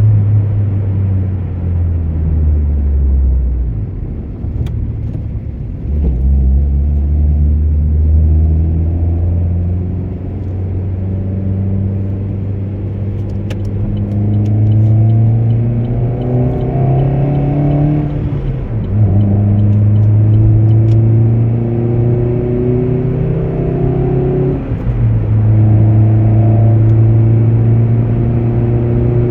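Car engine heard from inside the cabin while accelerating hard through the gears. Its pitch climbs steadily in each gear and drops at each of several gear changes.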